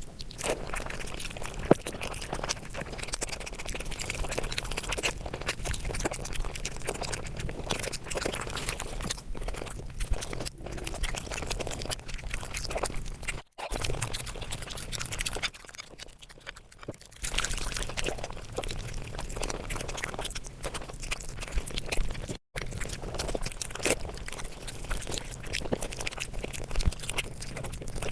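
Close-miked eating sounds sped up fivefold: rapid, chattering chewing, crunching and lip-smacking, broken twice by a brief gap where clips are joined.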